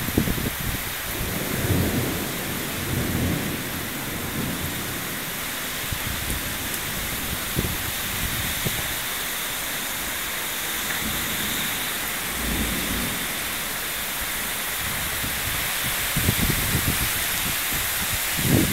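Heavy cloudburst downpour giving a steady hiss of rain, with low rumbles coming and going at intervals, strongest near the start and again towards the end.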